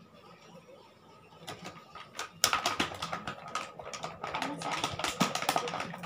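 Plastic toy pots, lids and utensils clicking and clattering as they are handled, a rapid run of small knocks that starts about two seconds in and grows busier.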